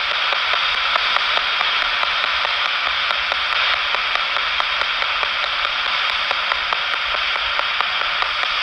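Hiss of radio static from a handheld ghost-hunting radio-sweep device (spirit box), with faint clicks a few times a second as it steps through frequencies.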